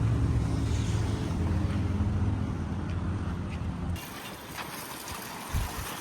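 JCB backhoe loader's diesel engine running steadily with a low, even note; about four seconds in it cuts off abruptly, leaving a quieter windy background with a few low thumps.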